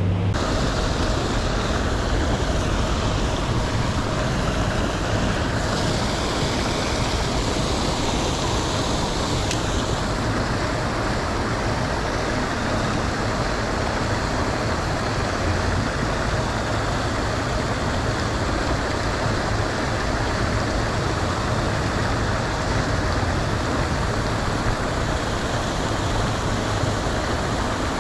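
Steady rush of churning pond water with a faint low motor hum: pond aerators running.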